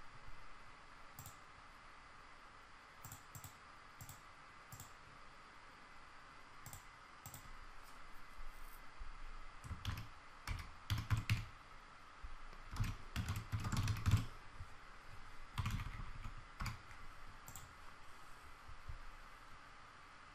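Computer keyboard typing and mouse clicks: a few separate clicks at first, then quick runs of keystrokes around the middle, over a faint steady hum.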